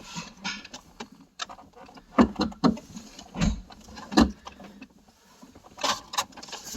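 Plastic trim cover around a car's manual shifter being worked and pried loose by hand: irregular knocks, clicks and rubbing, with the firmest knocks in the middle.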